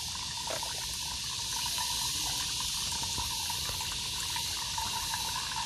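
Engine coolant pouring steadily out of the opened radiator drain of a second-generation Mitsubishi Montero, draining freely with the radiator cap off.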